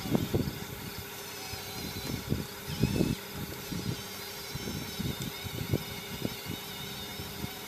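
1/12-scale RC4WD Earth Digger 4200XL hydraulic excavator driving on its tracks up a packed clay slope. Its electric hydraulic pump and motors give a steady whine, with irregular low bumps through it.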